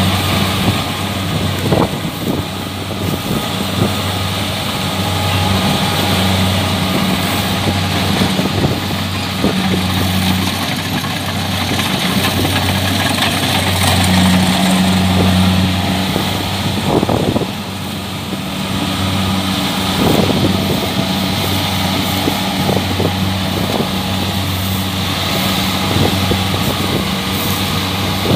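Kubota DC-70 combine harvester's diesel engine and machinery running, a steady drone that swells and eases unevenly, with a few short clatters.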